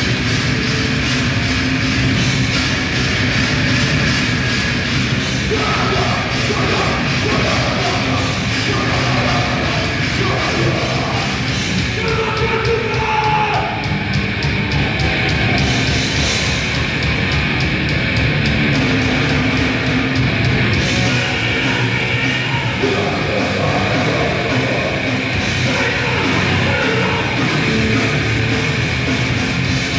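Grindcore band playing live at full volume: distorted guitars and bass over fast, dense drumming.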